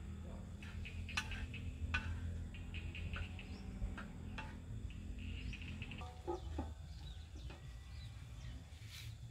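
A wooden spatula stirring in a clay wok, with a few sharp knocks against the pot, over a steady low rumble. About six seconds in, a chicken clucks a few times.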